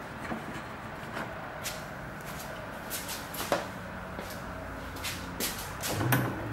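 Scattered light clicks and taps of a Phillips screwdriver and small screws and rubber grommets being handled, with one sharper knock about three and a half seconds in. A low steady hum comes in near the end.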